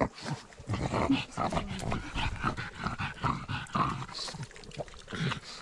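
A pug breathing hard and panting, close to the camera strapped to its harness as it hurries along, mixed with irregular scuffs and knocks from its steps.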